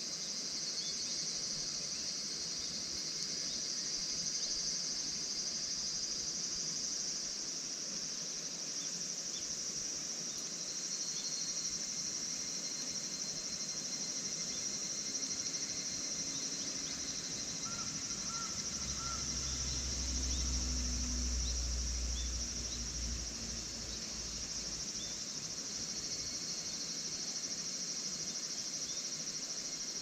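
Steady, high-pitched chorus of insects such as crickets or cicadas, with a low rumble for a few seconds past the middle.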